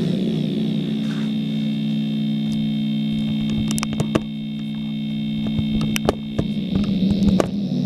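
A steady low hum with a thin high whine above it, broken by several sharp clicks in the second half.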